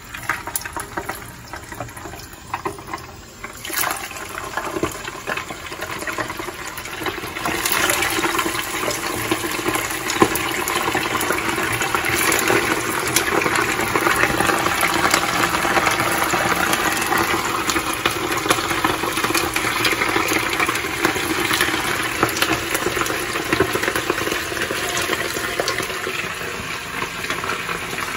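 Tamban (small sardines) deep-frying in a pan of hot oil. The oil sizzles and crackles as the fish go in, and after about 4 and again about 7 seconds it grows to a loud, steady sizzle that eases slightly near the end.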